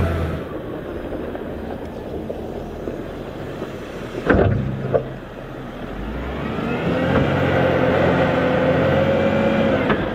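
Volvo wheel loader's diesel engine running, with two sharp clanks about four and five seconds in. Then the engine winds up under load with a rising whine that holds steady as the bucket drives into the pile.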